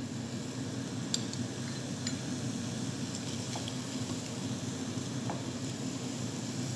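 Diced onions sizzling in oil in a stainless steel pan, with a spoon stirring them and a few faint light taps against the pan.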